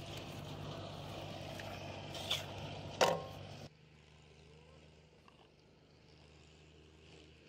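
A fish and its plastic-bottle float dropped into a metal basin: a light knock, then a loud clank with a short ring about three seconds in. A steady low engine-like hum runs underneath and drops away abruptly just after the clank.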